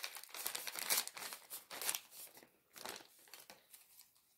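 Thin plastic bag crinkling as hands handle it and take small tools out of it, in irregular rustles that thin out and fade away over the last second or so.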